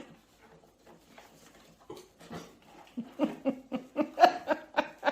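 A person laughing in quick repeated bursts, starting about three seconds in after a quiet stretch.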